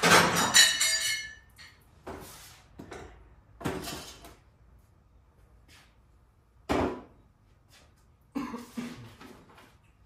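Metal parts and hand tools clanking on a workbench during carburetor disassembly: a loud metallic clank with a ringing tail at the start, then a few scattered knocks and clatters.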